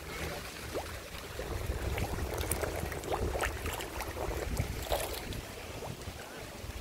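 Koi crowding and gulping at the pond surface, with many small irregular splashes and slurps, over a low rumble of wind on the microphone.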